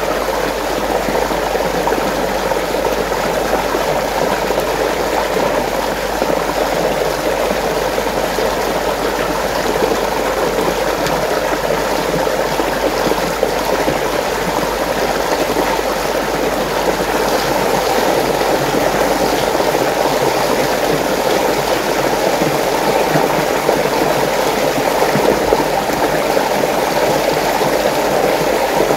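Water rushing and churning steadily in a whirlpool, an unbroken even rush.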